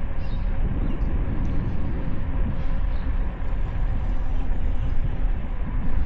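Wind buffeting an action camera's microphone while cycling: a steady, rough low rumble that rises and falls slightly.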